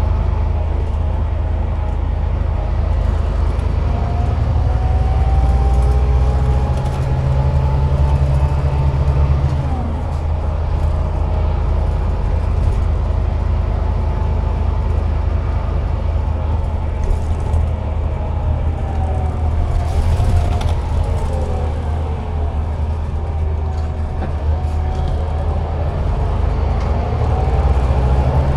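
Scania DC13 13-litre inline-six diesel of a Scania K360IB bus running under way, a steady low drone. Over it, a drivetrain whine rises with road speed, breaks off about ten seconds in, falls during a slowdown and climbs again near the end.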